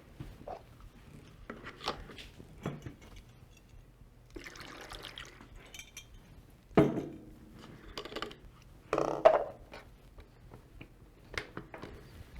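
Distilled water poured through a funnel into a ventilator's humidifier chamber, among small clicks and knocks of plastic parts being handled, with two louder knocks about seven and nine seconds in.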